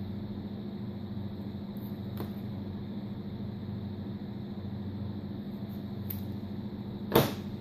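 Electric heat gun running with a steady fan hum. A sharp knock sounds near the end.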